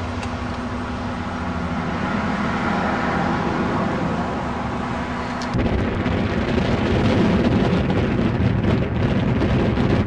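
A steady outdoor rumble and hiss, then an abrupt cut about five and a half seconds in to wind buffeting the camcorder microphone, uneven and gusting.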